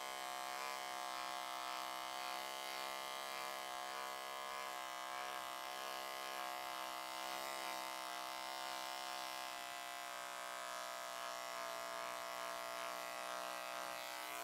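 Remington electric beard trimmer running with a steady buzz as it shaves the stray hair at the nape of the neck.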